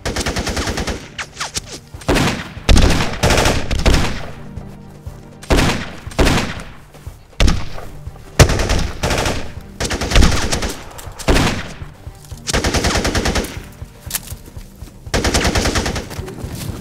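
Automatic rifle fire in repeated short bursts of rapid shots, with brief pauses between the bursts.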